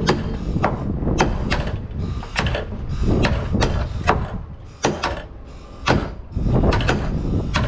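Hammer blows struck repeatedly, irregularly, about two a second, each with a short metallic ring, as a shipwright works on the wooden hull frames.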